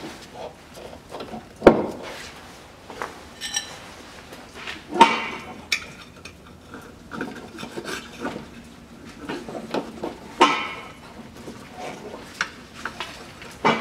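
Metal clanking and scraping as the steel exhaust muffler and pipe of a Chevrolet Lanos are worked by hand during removal, with several sharp clanks spread through and rubbing in between.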